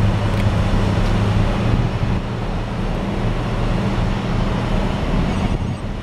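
Steady low drone of heavy machinery, a constant low-pitched hum under an even rumble, easing slightly near the end.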